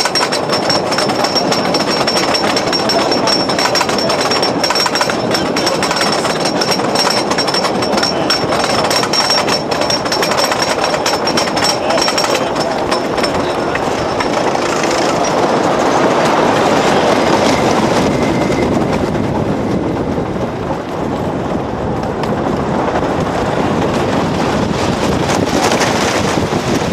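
Dania Beach Hurricane wooden roller coaster train running on its track, heard from on board. In the first part there is dense rapid clattering over a steady high whine. About halfway through it becomes a louder rumbling rush with wind on the microphone.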